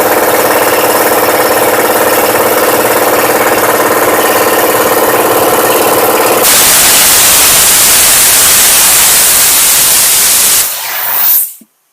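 Air compressor motor and pump running steadily, then shutting off at cut-out pressure about six seconds in. A loud hiss follows for several seconds as the unloader valve bleeds the head pressure off, showing that the newly replaced check valve is holding tank pressure and the unloader is relieving correctly.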